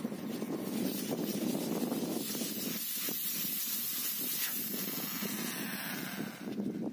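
Compressed air hissing steadily out of an HDPE compressor air hose as it is sawn through with a hacksaw blade, the line still holding pressure.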